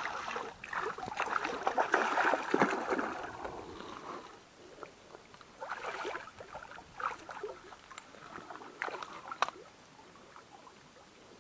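Water splashing at the surface as a hooked black bass thrashes at the end of the line, busiest for the first few seconds, then scattered smaller splashes and clicks.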